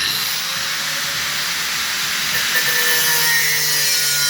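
Power cutting tool with a cut-off wheel cutting through a metal rod, a loud, steady grinding hiss that starts abruptly, with a faint tone sinking slightly in pitch in the second half as the wheel bites.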